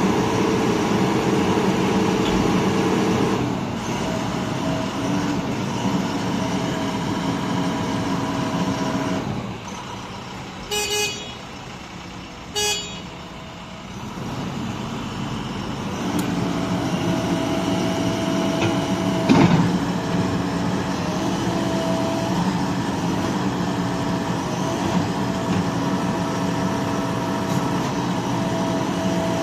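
JCB backhoe loader's diesel engine running steadily; about a third of the way in it drops quieter for several seconds, and two short horn toots sound during that lull before the engine picks up again. A single sharp knock comes about two-thirds through.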